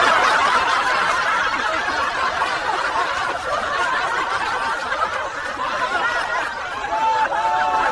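Laughter from several people at once, a dense overlapping mass of laughs that goes on without a break, with a few clearer laughing voices near the end.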